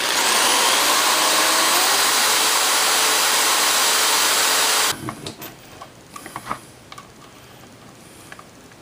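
A small handheld power tool runs steadily for about five seconds, working a small part, then cuts off; a few light clicks of handling follow.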